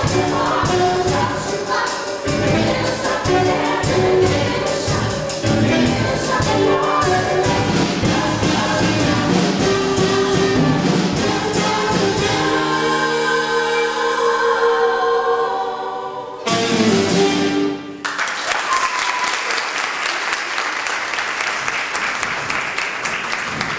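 A cast singing in chorus with live band accompaniment; the number ends about two-thirds of the way through on a short final burst, and audience applause follows for the rest of the time.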